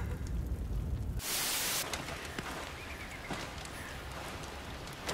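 A low rumble, then a sudden half-second burst of hiss, then a steady hiss with faint scattered crackles.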